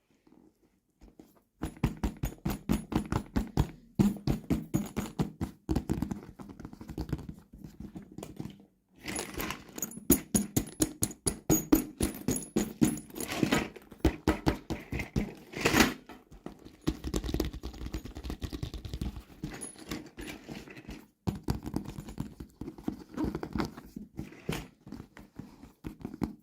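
Quick runs of clicks and taps from small plastic toy pieces and packaging being handled, several a second, broken by a few short pauses.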